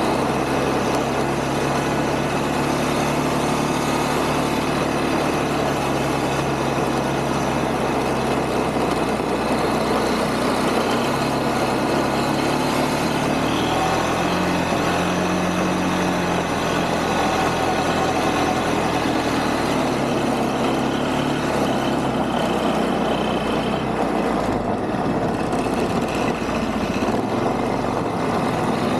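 Quad (ATV) engine running as it is ridden through snow, a steady motor note over a wash of noise. The engine note climbs briefly about halfway through, then settles back.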